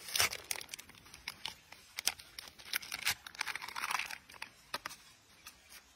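Plastic snack wrapper crinkling in quick, irregular crackles as a macaque handles it while eating.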